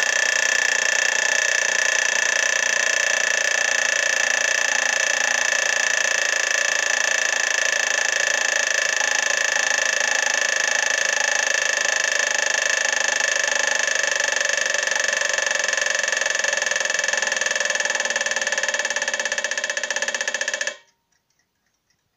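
Antique wind-up alarm clock's bell ringing continuously for about twenty seconds, then cutting off abruptly near the end, leaving faint ticking from the clockwork.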